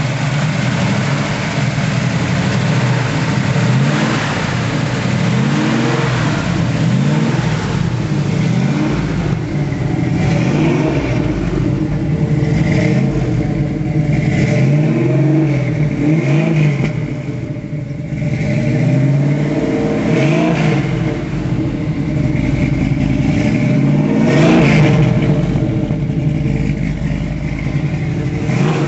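A 1970 Plymouth Hemi 'Cuda's 426 Hemi V8 running and being blipped again and again, the engine note rising and falling with each rev every couple of seconds.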